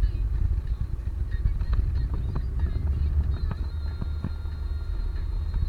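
Vehicle travelling on a road: a steady low rumble broken by irregular rattles and knocks.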